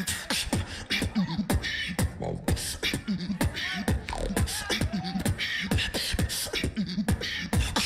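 Beatboxing: a beatboxer building a steady mouth-made beat of kick drums, snares and hi-hats, with short pitched swoops that arch up and down over the rhythm.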